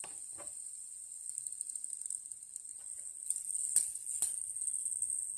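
A fidget spinner spinning on its bearing, a steady high whir, with several sharp clicks in the second half as fingers flick and catch it.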